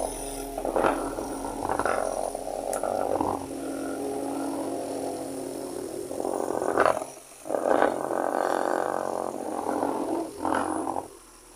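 A rasping buzz with a steady pitch, typical of a small DC motor running, broken off briefly twice and stopping near the end.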